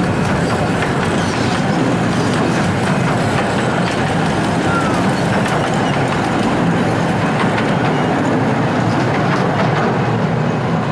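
Miniature 15-inch-gauge passenger carriages rolling past close by at a level crossing. It is a loud, steady rumble of wheels on rails with many small clicks running through it.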